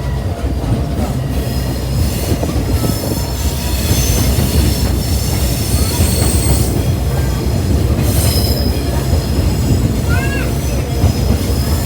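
Passenger train running, heard from an open-air car: a loud, steady rumble of wheels on track, with thin, high wheel squeal coming and going above it.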